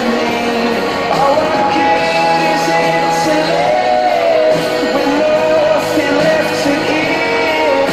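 A song with a singing voice over instrumental backing, played loudly.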